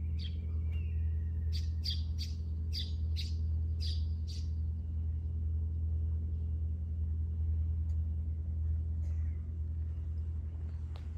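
A bird calls a run of short, sharp chirps, about two a second, for the first four seconds or so, over a steady low mechanical hum that is the loudest sound throughout.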